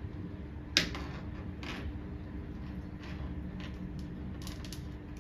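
Handling noise from a Boya microphone and its packaging being unboxed: a sharp click about a second in, another shortly after, then softer clicks and rustles.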